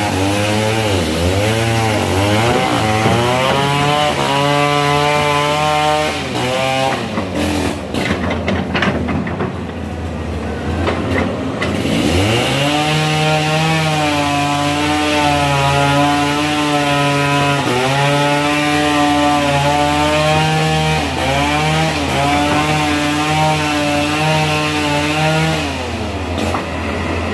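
Caterpillar excavator's diesel engine working under load as the machine crawls through deep mud, its pitch rising and dipping over and over. For a few seconds near the middle the engine note drops back and rattling and clanking come through, then the engine picks up again.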